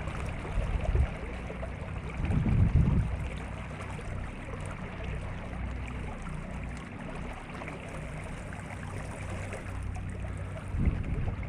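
Steady rush and splash of lake water around a small sailboat's hulls, swelling louder for a moment about two seconds in.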